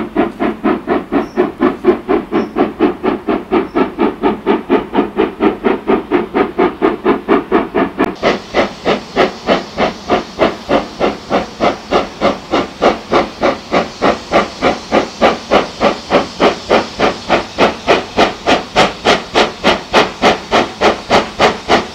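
Ivatt 2MT steam locomotive's two-cylinder exhaust chuffing steadily while hauling a train, about three beats a second. The beats turn sharper and brighter about eight seconds in.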